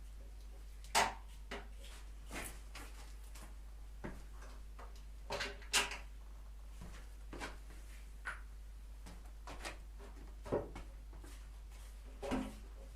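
Scattered clicks and short metallic knocks of tools and parts being handled during disassembly of a motorcycle. The loudest come about a second in and near six seconds in.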